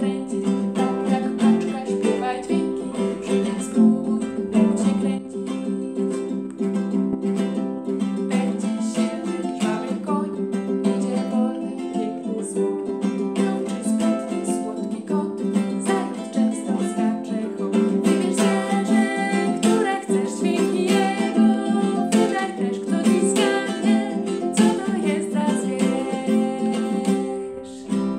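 An acoustic string instrument strummed in a steady rhythm, playing an instrumental passage of a children's song. It eases off near the end.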